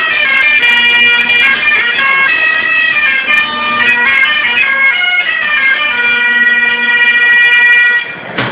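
Breton bombarde and bagpipe played together, a lively kas a barh dance tune over a steady drone. The tune ends on a long held note and stops shortly before the end.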